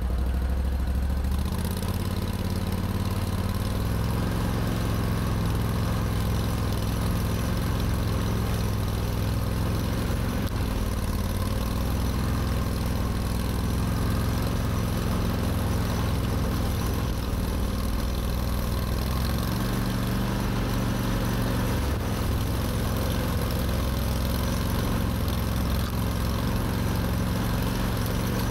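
Argo 6x6 amphibious ATV's engine running steadily as it drives, its note shifting about a second and a half in and again about two-thirds of the way through.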